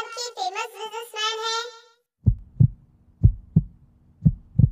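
A high voice singing or calling, ending on a held note about two seconds in. Then a heartbeat sound effect starts: paired lub-dub thumps about once a second over a faint steady hum.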